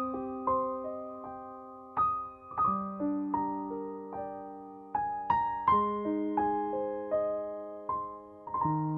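Soft background music on piano or electric piano: single notes struck over held chords, each note fading slowly, the chords changing every couple of seconds.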